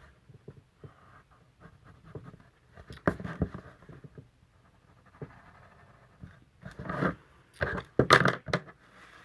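Paper and cardstock being handled and worked: short bursts of scraping and rustling, loudest cluster near the end.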